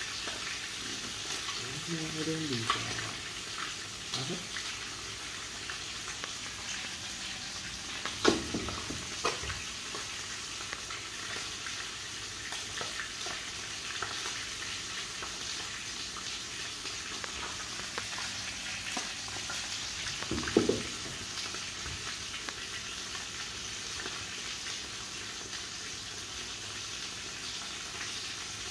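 Floured tarpon pieces frying in oil in a pan: a steady sizzle and crackle. Two sharp knocks stand out, about 8 and 20 seconds in.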